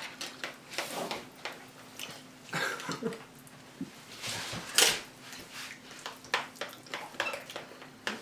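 Close-miked eating: irregular crunching and mouth clicks from chewing, with a few louder crunches, over a faint steady hum.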